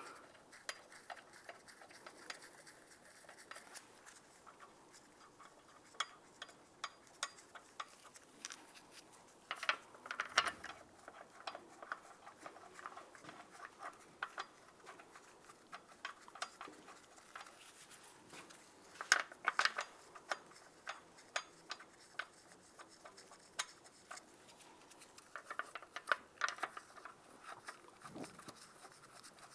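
Lug bolts being threaded by hand into an alloy wheel's hub: faint, scattered metallic clicks and rattles, with a few louder runs of clicking.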